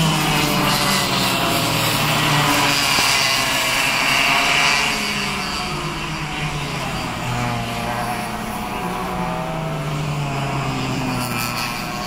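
Several cadet racing kart engines buzzing, their pitch rising and falling as the karts accelerate and slow through the corners.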